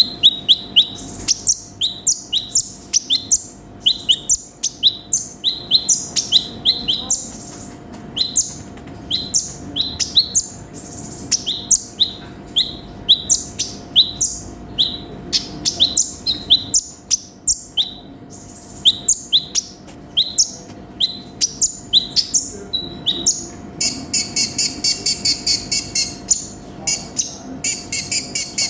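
A konin sunbird singing a loud, busy song of sharp high chirps, several a second, each dropping quickly in pitch. About 24 seconds in it switches to a fast, even trill of rapid notes.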